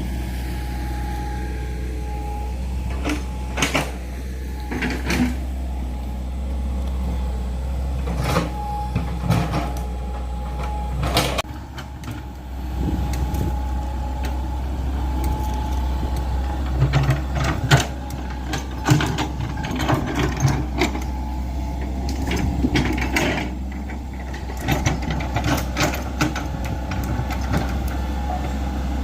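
Excavator's diesel engine running with a steady low rumble while it digs a trench, with scattered sharp clanks and knocks from the bucket and arm working.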